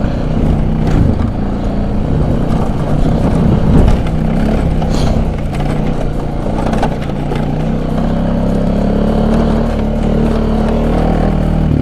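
ATV (four-wheeler) engine running steadily under throttle while towing a sled through snow, its pitch rising a little in the second half.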